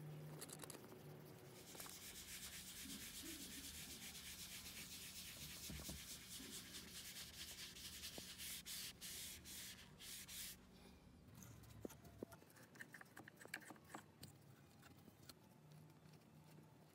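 A cloth rubbing over the black japanned bed of a 1909 New Home vibrating shuttle sewing machine during a first cleaning: a steady scratchy hiss that breaks into quick strokes and stops about ten seconds in. After it come a few light clicks and scrapes.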